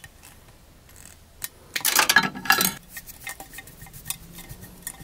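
Wire strippers snipping the ends off electrical wires: scattered sharp metallic clicks and snips, with a louder burst of clicking and handling noise about two seconds in.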